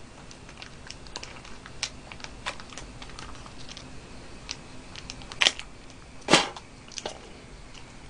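Small plastic sauce sachet crinkling and crackling as it is bitten and torn open by hand, with many small irregular crackles and two louder snaps a little past the middle.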